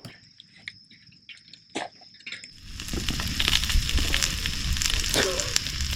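Crickets chirping steadily and quietly. A little under three seconds in, food starts sizzling loudly in a hot pan, a dense crackle of spitting fat.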